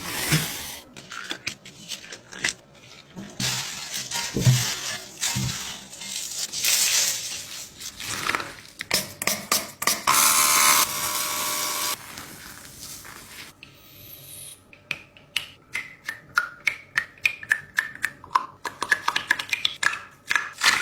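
Slime being worked by hand: sticky squelching and rubbing, then a quick run of sharp clicks and pops, about three a second, from roughly two thirds of the way in.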